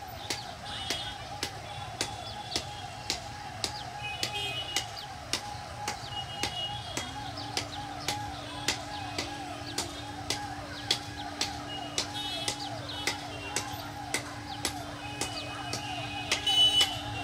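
Level-crossing warning alarm: an electronic warbling tone repeating several times a second, with sharp regular strikes about twice a second. A steady low hum joins it about seven seconds in.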